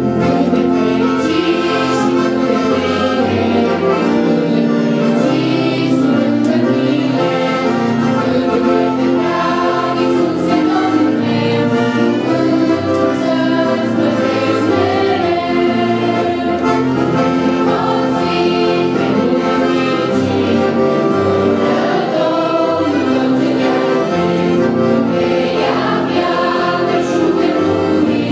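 A mixed family choir of children and adults singing a hymn in unison through microphones, accompanied by a piano accordion.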